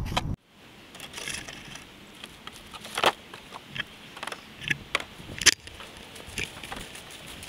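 Plastic jug target and its strings being handled, giving irregular crackles and crunches about once a second. The loudest come about three and five and a half seconds in.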